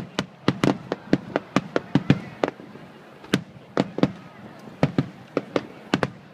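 Fireworks shells bursting in sharp bangs: about a dozen in quick succession over the first two and a half seconds, then a short pause, then more bangs at a slower pace.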